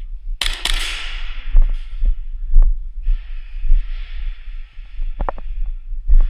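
Dull, irregular low thuds with rustling and scraping, as a player moves through close-quarters airsoft play with gear knocking against the worn camera. A loud rustle comes about half a second in, and a softer hiss runs through the middle.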